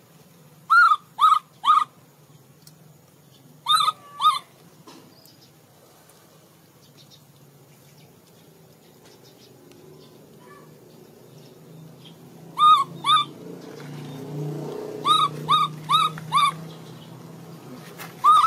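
Baby macaque giving short, high-pitched calls that rise and fall in pitch, repeated in quick clusters of two to four with pauses between.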